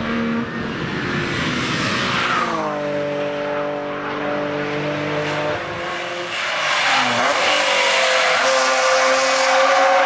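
BMW cars passing one after another through a corner on a racetrack, their engines running hard. The engine note drops about two and a half seconds in, holds steady, then a second car's engine takes over after about six seconds.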